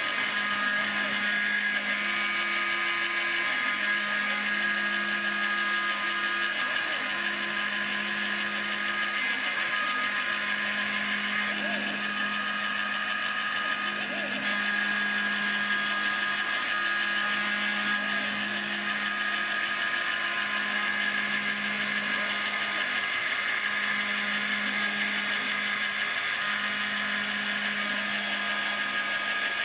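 Proxxon MF70 mini milling machine converted to CNC, isolation-milling a printed circuit board: the spindle motor runs steadily with a high whine, while lower hums start and stop every second or two as the axes move.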